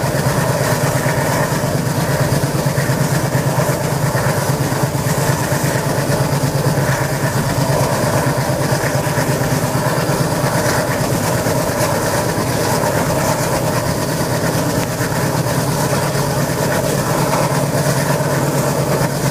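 Twin ALCO WDG-3A diesel locomotives chugging steadily under power as they pull the train, heard from a coach behind them over wind and rail noise. Each is driven by a 16-cylinder ALCO 251 engine.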